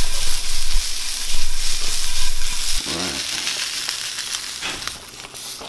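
Chicken, sliced potatoes and broccoli sizzling in a nonstick frying pan as they are tossed. The sizzle fades toward the end as the pan comes off the heat and the food is slid onto a plate.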